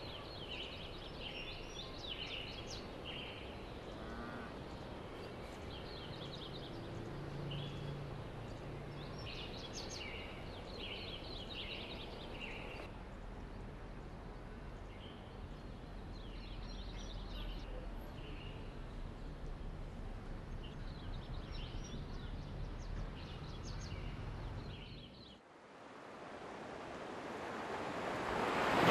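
Small birds chirping in short repeated bursts over a steady background hiss. About 25 seconds in the ambience drops out abruptly, then a rushing noise like surf swells up toward the end.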